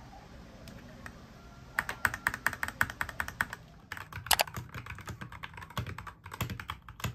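Yunzii YZ68 mechanical keyboard being typed on: a stretch of quick, rapid keystrokes that starts about two seconds in after a few faint clicks, with a brief break near the middle.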